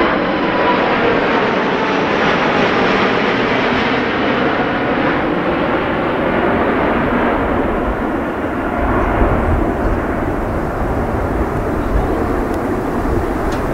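Airbus A380's four Rolls-Royce Trent 900 jet engines at climb thrust, passing overhead and going away: a loud, steady jet roar whose higher hiss fades over the first several seconds, leaving a deeper rumble in the second half.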